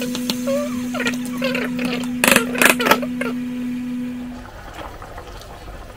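Wooden spoon stirring pork in a pot, then a glass pot lid clattering down onto the pot twice about two seconds in. Under it a steady hum runs, and it stops about four and a half seconds in.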